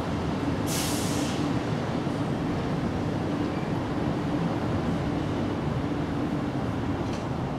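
Steady low background rumble with a faint hum running through it, and a short hiss about a second in.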